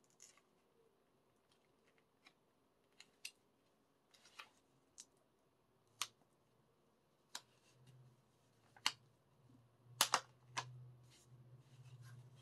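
A paper envelope being opened by hand: a string of irregular sharp snips and crackles of paper, the loudest pair about ten seconds in.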